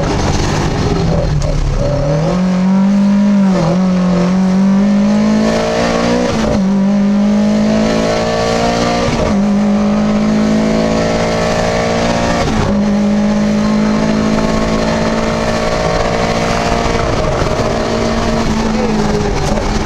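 Lada VFTS rally car's four-cylinder engine at high revs, heard from inside the cabin, pulled hard through the gears. The pitch climbs and then drops sharply at each of several quick gearshifts.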